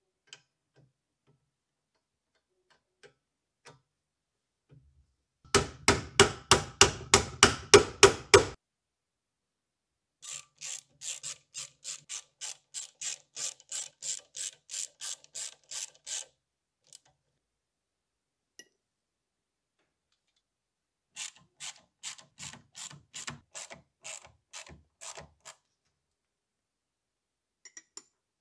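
Ratcheting driver clicking in three runs of quick, even clicks, about three or four a second, as socket-head screws are driven into a small lathe's cross-slide plate. The first run is the loudest.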